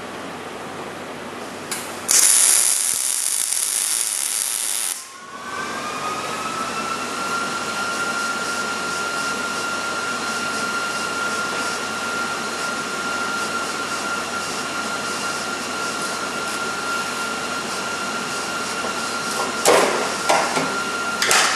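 A loud, sharp-edged hiss lasting about three seconds. Then a small electric power tool's motor spins up with a rising whine and runs at a steady pitch, with a few short knocks near the end.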